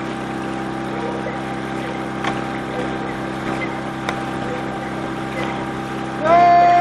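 Small outboard motor of a coaching launch running steadily, a low hum over water noise with a few faint knocks. Near the end a loud steady tone starts and holds.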